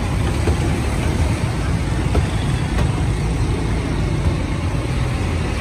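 Steady road traffic: a continuous low rumble of car and motorcycle engines and road noise.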